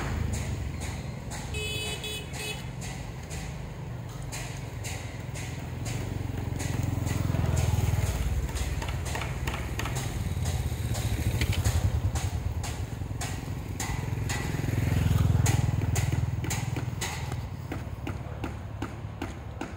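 Motor engines, most likely motorbikes, rumbling past in three waves that rise and fade, with frequent light clicks and knocks over the top.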